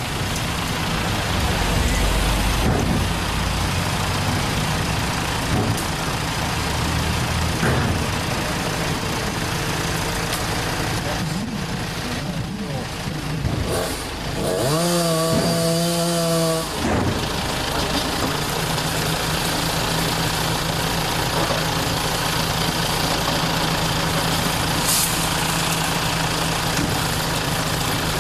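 A large truck engine running steadily, with a short held pitched tone for about two seconds around the middle.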